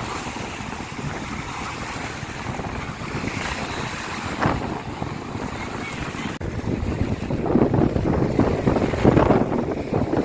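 Strong wind buffeting the microphone over waves washing in on a lake shore, the gusts and surf growing louder in the last third.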